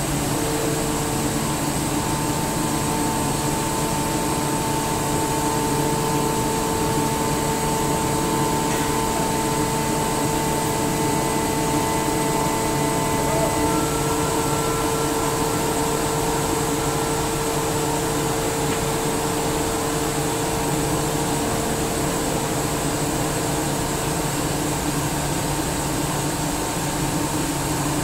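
SCR Comp SCR50M enclosed rotary screw air compressor running: a steady mechanical hum and hiss with a few faint steady whine tones, which shift slightly about halfway through.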